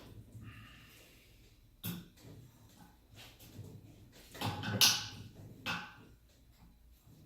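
Knocks and clatter of a tight bungee cord being stretched and hooked onto a bike's front suspension pivot: a sharp knock about two seconds in, a louder cluster about four and a half to five seconds in, and another knock just before six seconds.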